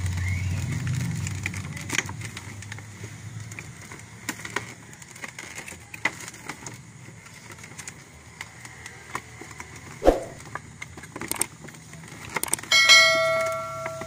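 Scattered clicks and crackles of a rigid plastic clamshell pack being handled, with a low engine hum fading away in the first two seconds. Near the end a bright bell ding rings out briefly, a subscribe-button sound effect.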